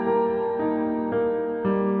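Background music on a keyboard instrument: a slow, soft melody of sustained notes that change about every half second.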